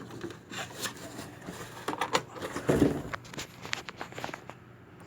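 An old cardboard train-set box being opened and its contents handled: a run of rustles, scrapes and clicks, with a heavier knock about three seconds in, going quieter near the end.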